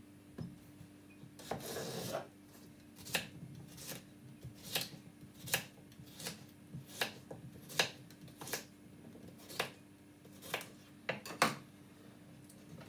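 Knife slicing a cucumber on a wooden cutting board: a string of short chops, roughly one every three-quarters of a second, with a brief scrape about two seconds in. A faint steady hum runs underneath.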